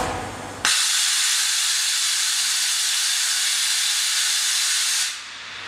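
Loud steady hiss from inside a NORTE VS 500 Speed vertical machining center. It starts abruptly about half a second in and cuts off about five seconds in.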